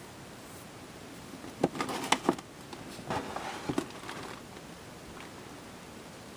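Handling noise: two short clusters of sharp clicks and rustling, about a second and a half and three seconds in, over a steady hiss.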